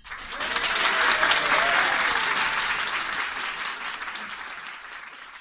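Music cuts off and an audience breaks into applause with a few shouts, the clapping fading away toward the end.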